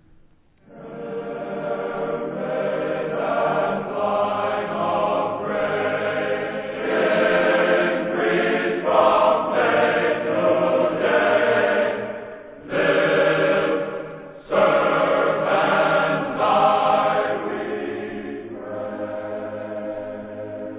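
A choir singing slow, sustained phrases as background music, with brief breaths between phrases.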